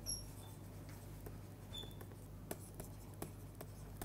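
Faint ticking and scratching of a stylus writing on a pen tablet, with a couple of brief high squeaks.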